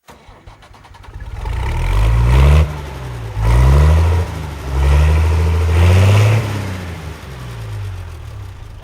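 A large engine revving up three times, its pitch climbing and then dropping back each time, then winding down toward idle near the end.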